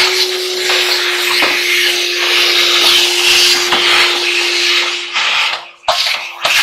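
Vacuum cleaner running: a steady motor hum under loud rushing air as the hose nozzle sucks debris off a clothes dryer's sheet-metal panel, with a few sharp clicks. The air rush dips briefly a little before the end, then resumes.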